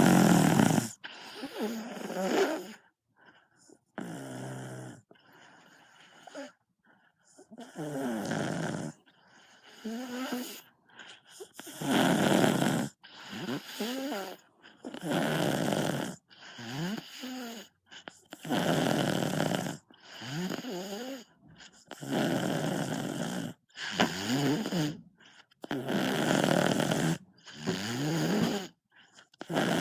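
A child snoring loudly in a steady rhythm, about one snore every one and a half to two seconds, several of them with a wavering, rising-and-falling pitch.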